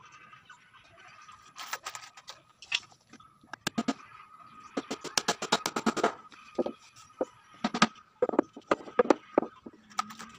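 Claw hammer tapping nails into the plywood of a subwoofer box, fastening its internal panels. Scattered single knocks come between quick runs of light taps, several a second.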